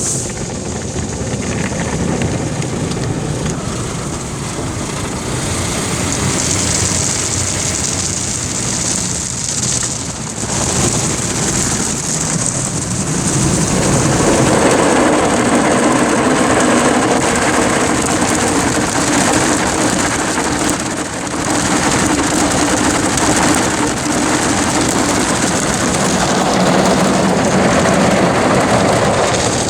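Ryko Soft Gloss Maxx automatic car wash working over the car: water spray and rotating brushes hitting the body, heard from inside the cabin as a loud, steady wash of noise that grows louder about 13 seconds in.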